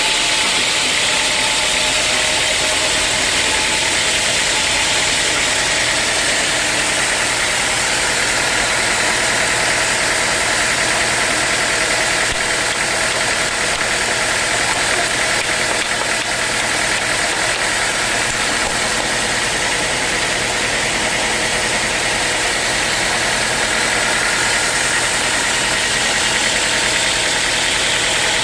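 Sawmill machinery running steadily as teak logs are sawn: a loud, even mechanical noise.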